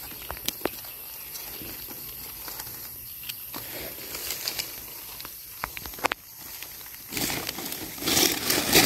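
Dry forest leaf litter being handled, with a few scattered sharp clicks and crackles. About seven seconds in, a louder crunching, crackling rustle of dry leaves begins and keeps going.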